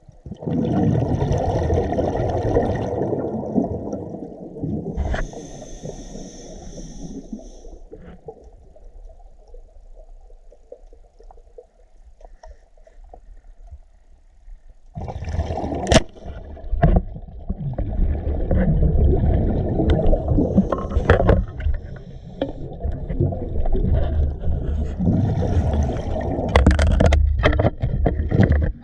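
Muffled underwater water noise picked up through a GoPro's waterproof housing: rushing and bubbling as the diver moves, quieter for a while, then loud again. A sharp click comes about sixteen seconds in, with more clicks and knocks near the end.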